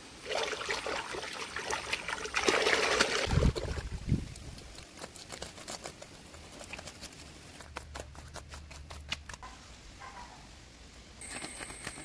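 Wet mud and water splashing and trickling for about four seconds, with two dull thuds near the end of it. Then a wooden scraper scrapes and taps on the wet mud surface in a run of short clicks.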